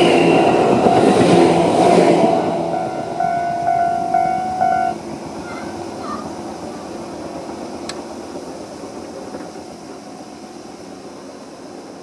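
Tobu 6050 series electric train passing over a level crossing, its wheels rumbling on the rails, with the crossing's electronic warning bell ringing. The train noise fades over the first few seconds and the bell cuts off about five seconds in, once the train has cleared. A single sharp click follows near eight seconds.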